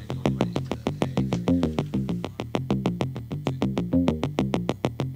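Background music: an electronic synthesizer tune with a quick, steady beat.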